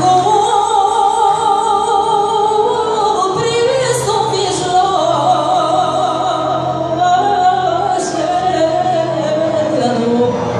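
Romanian folk music: a singer holds long, wavering notes over a folk orchestra of violins, cimbalom, accordion and double bass.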